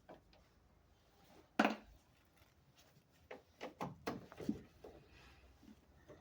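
Clicks and knocks of hand work on a pickup truck's tail light: one sharp knock, then a quick run of clicks and knocks about two seconds later.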